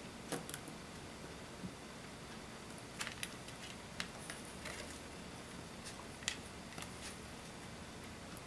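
Faint, irregular small clicks and taps of small tools and parts being handled, such as a screwdriver and tweezers on screws and brackets inside an iPad 2, over a low steady hiss.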